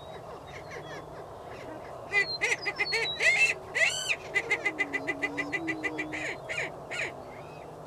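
Greater prairie chickens displaying: a loud, rapid run of cackling calls from about two seconds in until near the end, over low, wavering booming hoots.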